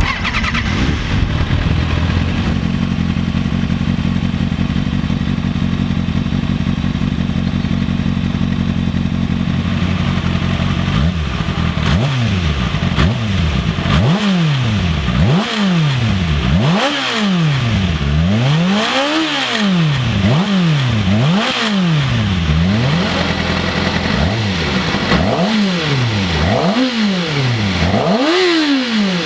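2007 Kawasaki ZX-6R 600cc inline-four through its stock exhaust with catalytic converter and exhaust valve, running steadily for about ten seconds, then revved in a series of quick throttle blips, each rising and falling in pitch.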